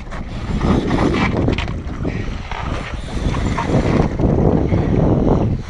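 Wind gusting across the microphone, a loud rumbling rush that swells and fades.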